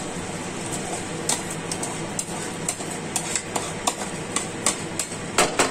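Rice and lentils poured from a ceramic bowl into a kadai, a spoon scraping and tapping the bowl in a string of sharp clicks that crowd together near the end, over a steady hiss.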